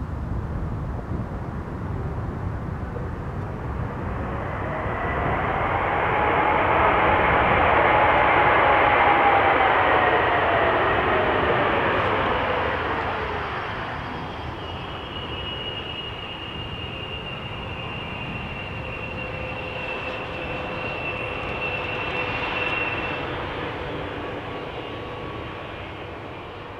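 Airbus A220-100's Pratt & Whitney PW1500G geared turbofans running as the airliner rolls out after landing and taxis past. The engine whine bends up and then down in pitch as the noise swells to its loudest about a third of the way in, then eases into a steady high whine.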